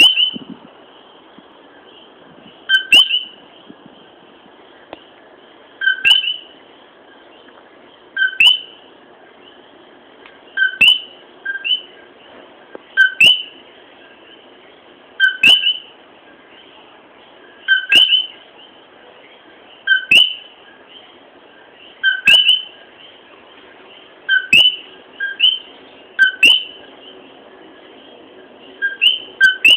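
Common coquí frog calling its two-note "co-quí": a short low note followed by a higher, upswept one, repeated every two to three seconds over a steady background hiss.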